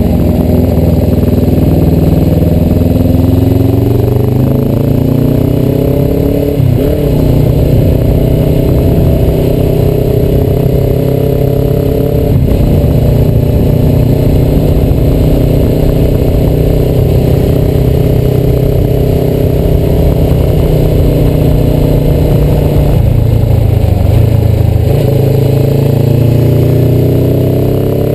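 Suzuki motorcycle engine, heard from an onboard camera, pulling up in pitch over the first few seconds, with a brief dip about six seconds in, then holding a steady cruise. It eases off and picks up again near the end, with wind rush over the microphone throughout.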